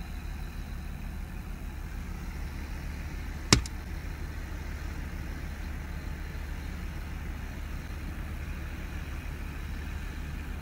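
A tractor burning: a steady low rumble, and one sharp bang about three and a half seconds in, something in the fire bursting.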